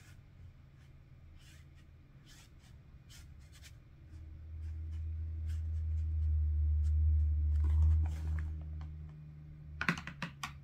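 Soft scratchy strokes of a size 10 round watercolor brush working wet ink across cold-press watercolor paper. A low steady hum swells from about four seconds in and fades near the end, where a quick cluster of clicks and taps follows.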